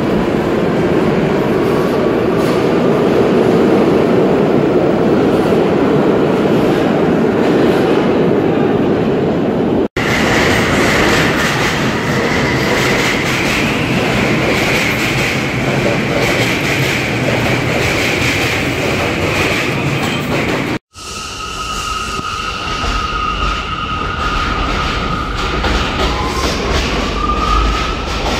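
New York City Subway trains running through stations, heard in three stretches cut together: the rumble and clatter of steel wheels on rails. The second and third stretches add a steady high whine, which rises near the end.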